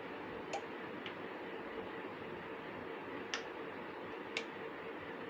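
Low steady background hiss with a faint steady hum, broken by a few soft, short clicks spread through.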